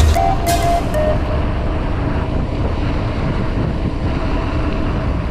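Steady rush of wind buffeting the camera microphone, mixed with road noise, as on a moving ride. A few short music notes sound in the first second and then stop.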